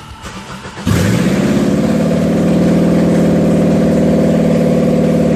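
Subaru EJ20 2.0-litre flat-four catching about a second in on its first start after being swapped in, revving up briefly and then settling into a steady, fast idle. The exhaust is disconnected, so it runs unmuffled and loud.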